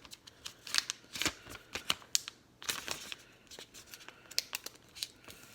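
A sticker being picked at with fingernails and peeled off its backing paper: a run of small irregular scratchy clicks and crinkles.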